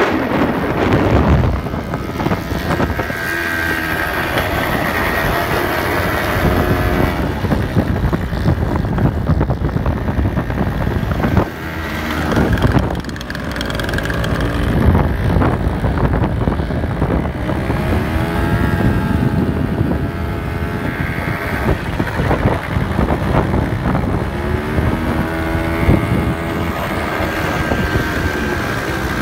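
Quad bike (ATV) engines running and revving, the pitch rising and falling several times, with a brief drop about twelve seconds in.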